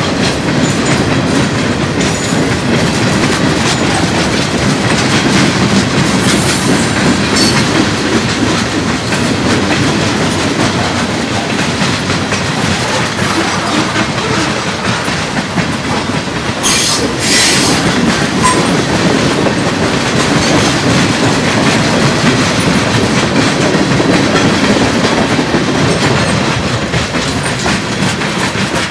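Freight train cars rolling past, a steady rumble of steel wheels on rail with clickety-clack over the rail joints. Brief high wheel squeals come twice, about six seconds in and again around seventeen seconds in.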